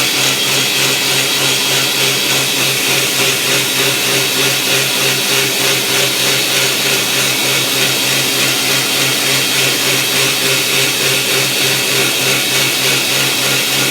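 A homemade 2x72 belt grinder running free with no work on it. Its VFD-driven motor and belt make a loud, steady whine and hiss, with a slight regular pulsing.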